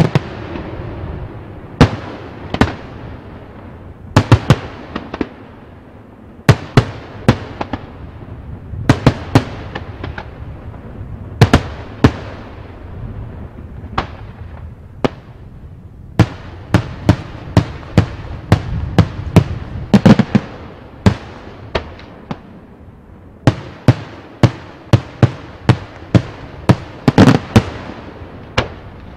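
Daytime aerial fireworks: shells bursting overhead as dozens of sharp, loud bangs in irregular volleys, each trailing off in an echo.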